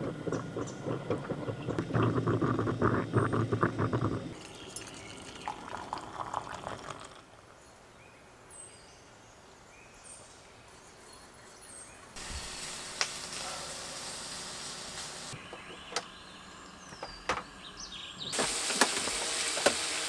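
Stainless stovetop percolator coffee pot bubbling and perking on a camp stove burner for the first four seconds, then faint bird chirps, and food sizzling on a griddle starting near the end.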